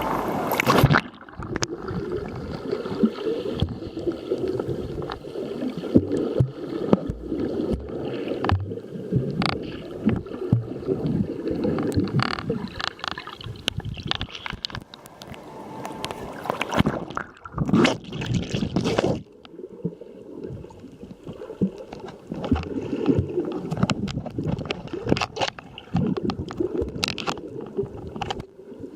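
Sea waves washing and sloshing on the shore in an irregular, rushing wash with louder surges, the strongest a little past the middle. Wind buffets the phone's microphone.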